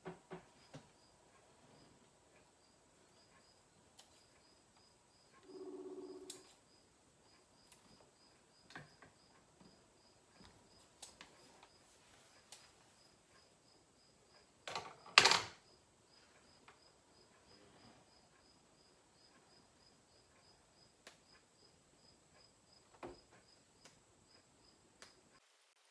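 Mostly quiet room, with faint high chirps repeating evenly about two to three times a second throughout. A short low hum comes about six seconds in, and a single sharp knock about fifteen seconds in.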